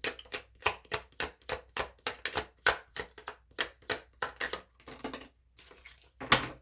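Quick run of light paper flicks, about three a second, as tarot cards or booklet pages are thumbed through one by one; a single louder flick near the end.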